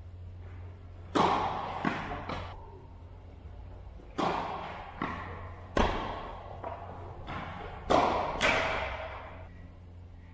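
Tennis rally: about eight sharp pops of racket strings striking the ball and the ball bouncing on the court, each followed by a reverberant echo in the metal-walled hall.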